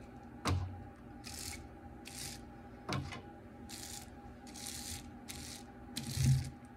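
A rubber brayer rolling back and forth through wet paint and over bubble wrap, a short hissy swish with each stroke. Three dull knocks stand out: about half a second in, around the middle, and near the end.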